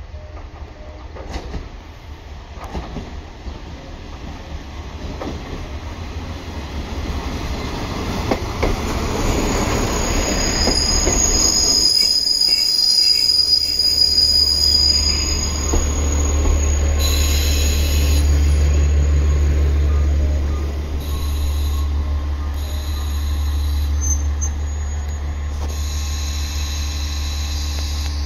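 Two-car KiHa 47 diesel railcar pulling into a station. Its wheels knock over the rail joints as it nears, its brakes squeal with high tones about a third of the way in, and its diesel engine hums low and steady as the cars draw alongside and stop.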